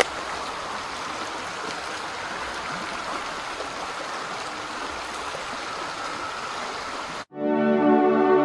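Creek water running steadily. About seven seconds in it cuts off abruptly, and ambient music with held synthesizer tones begins.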